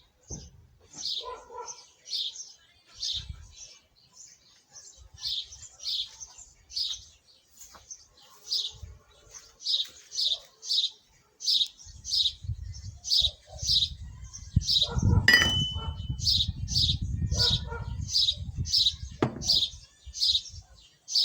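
Short high chirps repeating about twice a second, like a small bird chirping, with a low rumbling noise rising in the middle and fading near the end.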